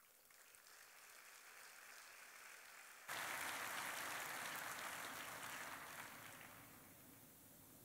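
Audience applauding. It grows suddenly louder about three seconds in and dies away near the end.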